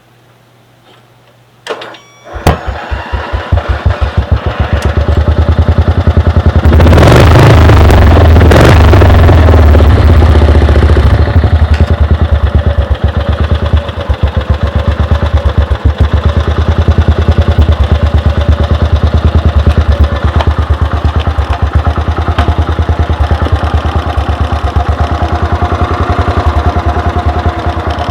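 A custom lawn mower's engine starts about two seconds in after a brief cranking clatter, is revved up for a few seconds, then runs loud and steady with a rapid, slightly uneven exhaust beat.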